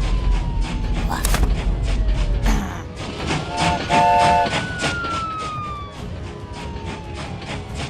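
Cartoon soundtrack: music with a steady beat over a police car siren wailing slowly up and down. A deep rumble sits under the first two and a half seconds, and a horn sounds twice in short blasts about four seconds in.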